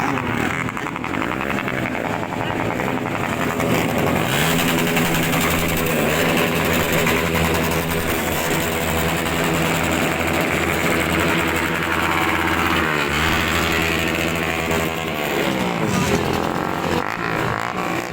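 Motorcycle engines revved through loud aftermarket exhausts in a loudness contest. The revs rise and fall several times, with the sharpest dip-and-rise about thirteen seconds in and more near the end.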